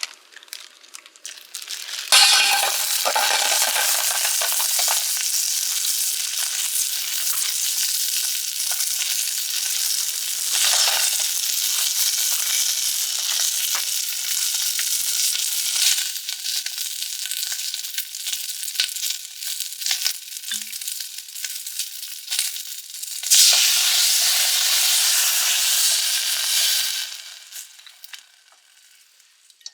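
Food sizzling hard in a hot pan, starting suddenly about two seconds in. It swells into a louder burst of sizzling near the end, then dies away.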